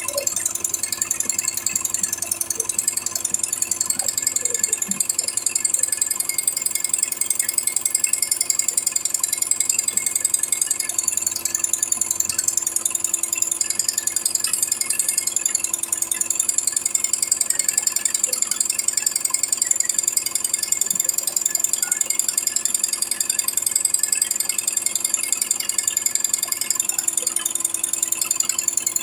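Single-head, eight-needle computerized embroidery machine stitching: a rapid, steady mechanical clatter of the needle bar and hook running at speed.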